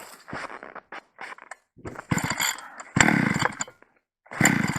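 Small petrol engine of a Chinese ice auger being pull-started: it fires in several short bursts, each under a second, and dies between them without settling into a steady run.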